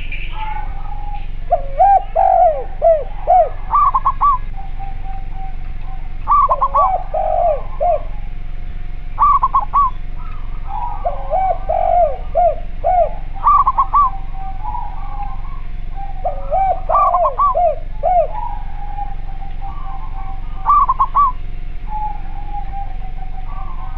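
Doves cooing: spotted dove (tekukur) and collared dove (derkuku) calls, in short phrases of several coos that repeat every two to three seconds, some pitched lower and some higher. A faint steady tone runs underneath.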